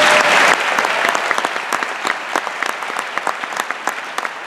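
Audience applauding, loudest at the start and thinning out to scattered claps toward the end.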